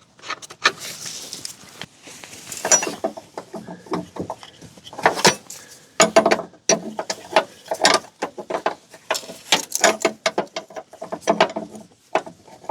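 Hand tools working on the car's front suspension: irregular metallic clicks, clanks and knocks, with a quicker run of clicks about nine seconds in.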